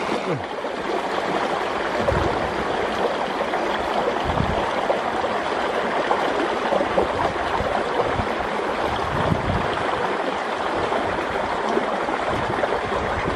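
Fast-flowing, muddy stream water rushing steadily through a stone arch culvert and over the rocks at its mouth.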